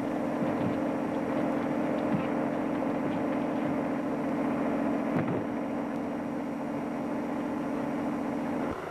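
Motor vehicle engine running steadily at speed, a continuous drone with a fine even throb, which cuts off abruptly near the end.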